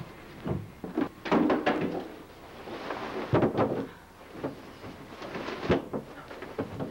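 Scuffling with a series of irregular thumps and knocks against a wooden door as one person grabs and shoves another, the knocks bunched about a second in, around three and a half seconds, and once more near six seconds.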